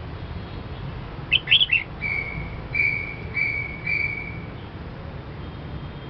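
Red-whiskered bulbul singing one short phrase: three quick sweeping notes about a second in, then four short level whistles.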